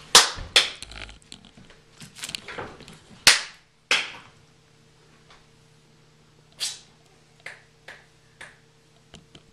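Yorkshire terrier puppy giving a series of short, sharp barks, loudest near the start and around three to four seconds in, then a few fainter ones later.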